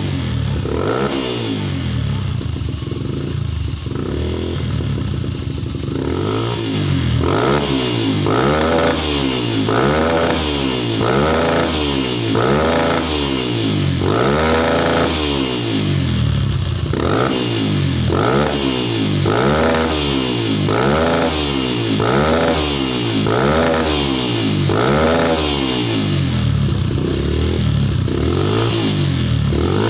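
Motorcycle engine breathing through a Prospeed RX series aftermarket exhaust, running steadily for a few seconds and then having its throttle blipped again and again. The revs rise and fall about once a second, with one longer rev near the middle.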